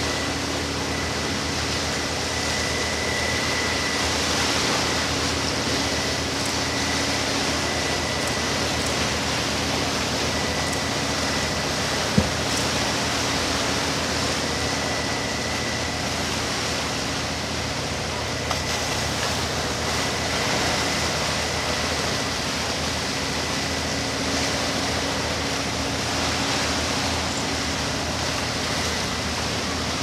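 Steady wash of sea waves on a rocky shore, an even hiss with no pauses, with a faint steady whine underneath and a single sharp click about twelve seconds in.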